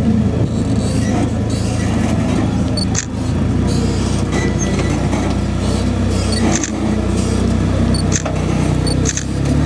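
Off-road trial buggy's engine running at a steady low speed as the buggy crawls up a staircase of concrete blocks, with a few sharp clicks along the way.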